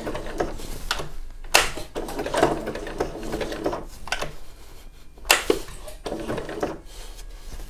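Computerised sewing machine zigzag-stitching in short stop-start runs while the fabric is turned by hand around a tight curve, its needle mechanism clattering, with two sharper knocks about a second and a half in and again past five seconds.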